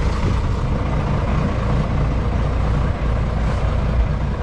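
A small fishing boat's outboard motor running steadily, a deep even drone that does not change.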